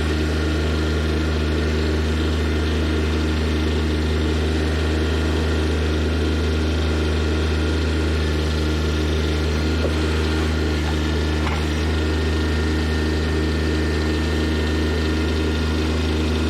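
Tractor engine running steadily at constant speed.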